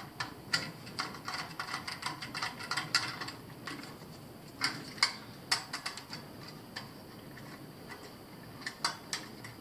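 Irregular small clicks and rattles of hand work on a Honeywell zone valve's wiring terminals, as wires are fitted and fastened. They come in clusters, thickest in the first few seconds, again around the middle, and briefly near the end.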